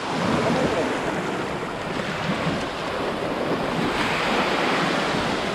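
Surf washing steadily onto the shore, with wind on the microphone.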